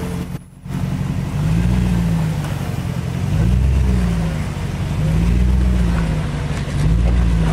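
Jeep Grand Cherokee WJ's engine revving in repeated surges under load as it crawls over dirt mounds, its pitch rising and falling several times.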